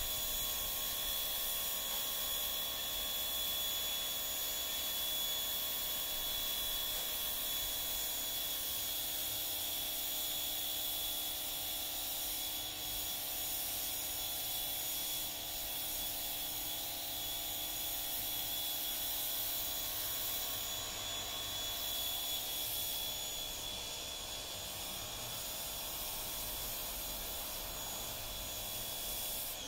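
Steady mechanical hum with several fixed tones and a high hiss, unchanging throughout.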